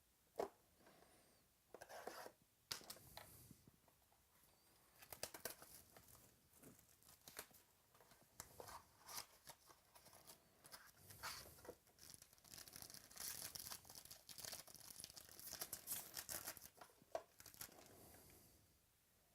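Faint tearing and crinkling of a trading-card pack's wrapper being torn open, with scattered clicks and rustles of cards being handled, the rustling thickest a little past halfway.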